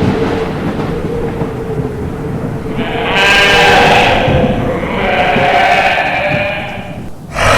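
Horror sound effect: a low, dark rumble, joined about three seconds in by two long, wavering, moan-like wails one after the other.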